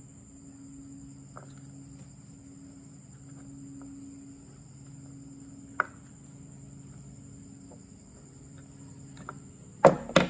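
Small clicks of pliers and crimp connectors as the air blower motor's wires are joined, over a steady high whine and a low hum. Two sharp knocks near the end are the loudest sounds.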